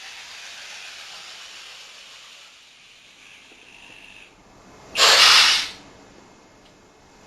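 Electronic steam sound effects from a model-railway wagon's sound module: a steady steam hiss, then a loud, sharp burst of hiss about five seconds in that stops after under a second.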